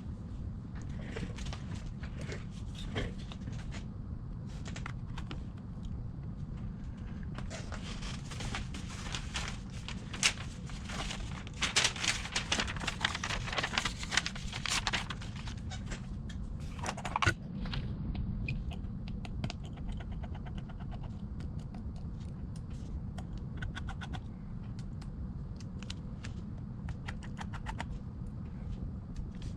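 Small tools clicking, tapping and scraping against an iPad during a screen and battery repair, with a cluster of sharp clicks in the middle, over a steady low hum.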